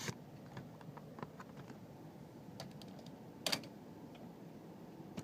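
Scattered small clicks and one sharper, brief scraping strike about three and a half seconds in: a handheld lighter being flicked, not yet catching.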